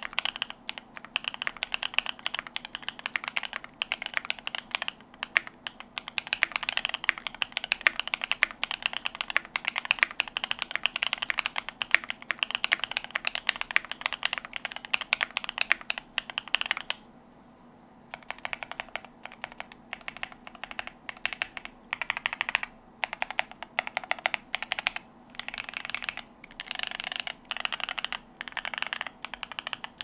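Typing on an Alpine65 custom mechanical keyboard built with a brass plate, full foam and lubed, filmed Creamsicle linear switches. It is a fast, continuous stream of keystrokes that stops for about a second just over halfway through, then comes back in shorter runs with brief pauses.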